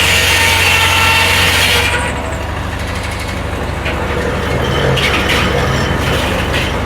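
Corley circular sawmill running through a cut, the bright saw noise dropping away about two seconds in as the cut ends, then the power unit driving the mill keeps running steadily with a few light knocks.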